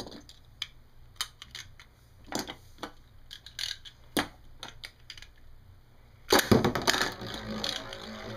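Scattered light clicks, then about six seconds in a metal-wheel Beyblade top is launched with a ripcord launcher and spins, scraping and rattling around the plastic stadium bowl.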